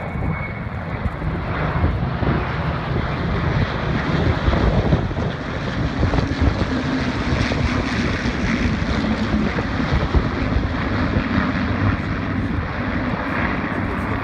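A large formation of piston-engined propeller warbirds flying past together: a steady drone of many engines at once. A deeper, stronger engine note comes in around the middle as the formation passes overhead.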